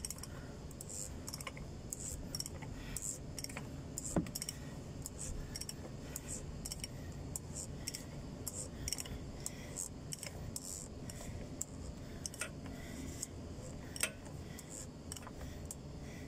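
Socket ratchet wrench clicking in quick, irregular runs as it is worked back and forth on the oil filter housing cap of a Mercedes-Benz Actros truck engine to unscrew it. A sharper metallic knock comes about four seconds in and again near fourteen seconds.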